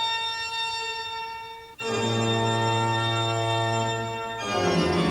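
Organ playing long held chords for a spooky effect, changing chord twice, about two seconds in and again near the end.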